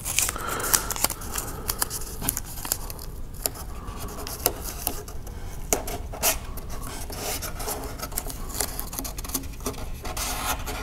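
Blue painter's tape being pulled off and rubbed down by hand onto a model airplane's landing gear: an irregular run of scratchy rubs, rasps and small clicks.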